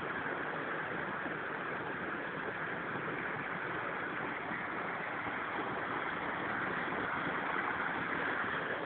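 Rushing water from river cascades, a steady hiss that grows slightly louder about two-thirds of the way in.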